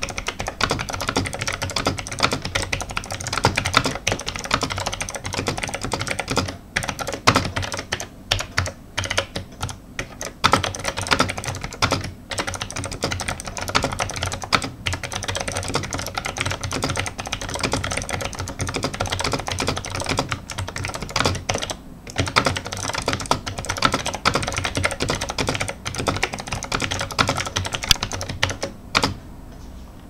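Continuous typing on an NMB RT-8255C+ keyboard with clicky Hi-Tek Space Invaders switches: a fast stream of soft, high-pitched clicks from the switches' plastic click mechanism, broken by a few brief pauses.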